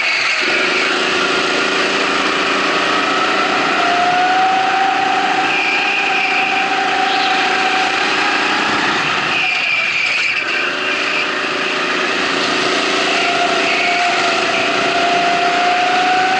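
Racing kart's engine heard from onboard, running under throttle with its pitch climbing as it accelerates, falling away briefly about ten seconds in as it lifts for a corner, then climbing again.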